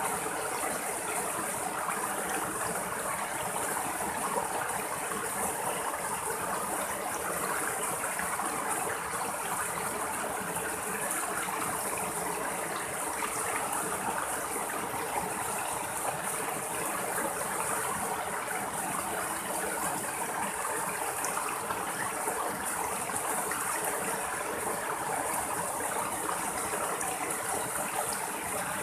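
Small rocky stream running over boulders in little cascades: a steady, unbroken rush of splashing water, with a steady high hiss over it.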